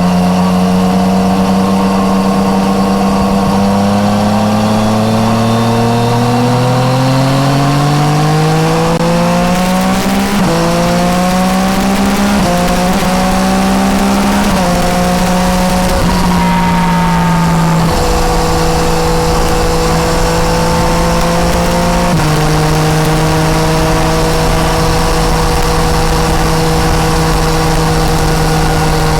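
Yamaha MT-09 Tracer's three-cylinder engine through an Akrapovic exhaust, heard from the rider's seat. It pulls up through the revs for about ten seconds, then rises and drops several times as it shifts up through the gears. It eases off, holds a steady cruising note, and drops once more a little after the middle before cruising on.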